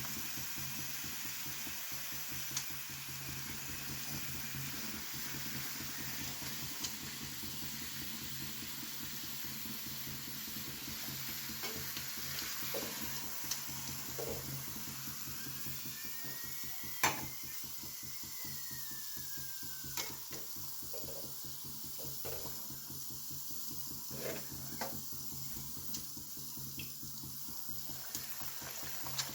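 Food frying with a steady sizzle, with scattered sharp clicks of utensils.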